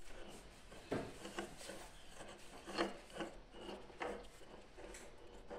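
Faint scraping and rubbing of a hand tool on stapled upholstery fabric over a wooden board: about half a dozen short strokes at irregular intervals.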